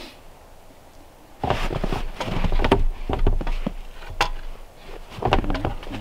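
Knocking and scraping of a long aluminum level being handled against a wooden window frame and log wall, beginning about a second and a half in, with a sharp click about four seconds in and a low rumble underneath.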